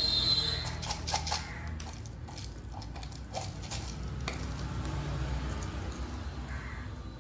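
Dried whole-spice pieces clicking and rattling against a small metal tin as fingers rummage through them, with a short scraping hiss at the start and scattered clicks after.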